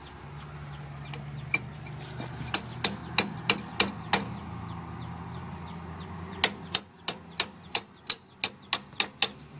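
Hammer striking the steel parts of a boom barrier being repaired: two runs of sharp, ringing blows about three a second, with a pause in between. A low steady hum sits under the first run and fades out before the second.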